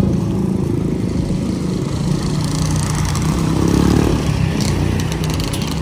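Motor vehicle engine running steadily.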